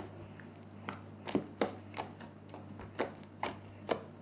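Freshly made fluffy slime being squeezed and stretched by hand, giving about six sharp wet clicks and pops.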